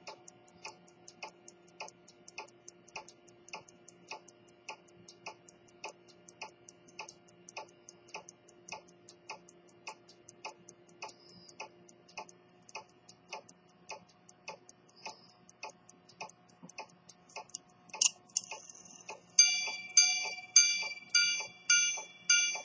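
Swiss quarter-repeating pocket watch from about 1900 ticking steadily. About 18 seconds in there is a sharp click, and then the repeater's hammers strike its gongs about twice a second, ringing out the time.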